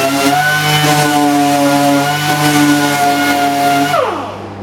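Hand-held sander (the "buzzer") with 40-grit paper running steadily against a plastic bumper bar, a whine with a hum under it as it shaves down welded plastic. Near the end it is let off and its whine falls sharply, then it spins back up.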